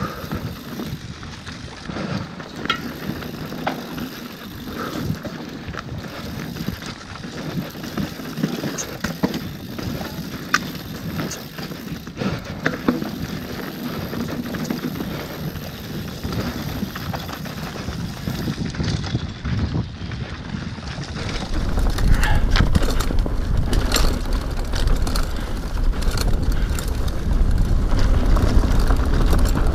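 Mountain bikes riding a dry dirt singletrack: tyres rolling over the ground and the bike rattling, with many scattered clicks and knocks. About three-quarters of the way through it becomes louder, with a heavy low rumble and more frequent knocks, as heard riding a yellow Commencal Meta AM hardtail.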